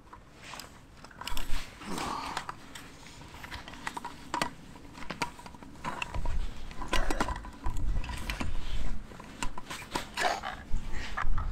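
Gloved hands rustling and clinking camping cookware out of a mesh stuff sack, with many small knocks and clicks and a few low bumps of handling.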